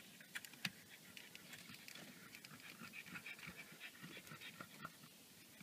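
Faint small clicks and scrapes of a plastic trim removal tool prying at a dashboard switch panel, with quiet panting breaths.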